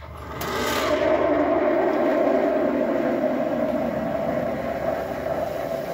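Espresso machine steam wand opening about half a second in with a sharp burst of hiss, then a steady loud hiss as it steams and froths milk in a steel pitcher for a cappuccino.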